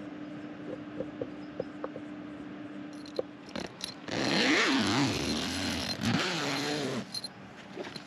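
A zipper pulled open in one long run of about three seconds, its pitch wavering with the pull, after a few faint clicks and rustles.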